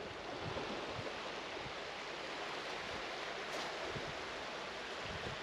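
Steady wash of small waves on a sandy beach.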